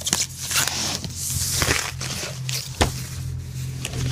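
Packaging rustling and crinkling in irregular bursts as the unboxed contents are handled, with a sharp knock a little under three seconds in.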